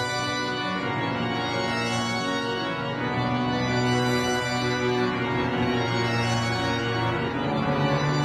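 Background music of long held organ-like chords that change every couple of seconds.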